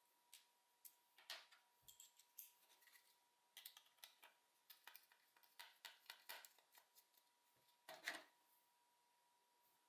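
Faint, irregular small clicks and taps of hands and small tools on the plastic shell and parts of a Logitech G304 wireless mouse being taken apart, with a louder cluster of clicks about eight seconds in. A faint steady high tone runs underneath.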